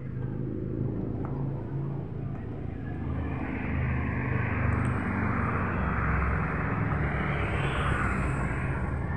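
Steady low engine rumble, with a rushing hiss that swells about three seconds in and stays.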